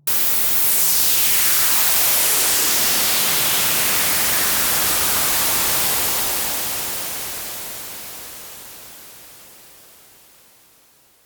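A horror sound effect made of hissing static noise that starts abruptly and loud, with a whoosh falling in pitch through it over the first few seconds. It holds steady, then fades out slowly over the last half.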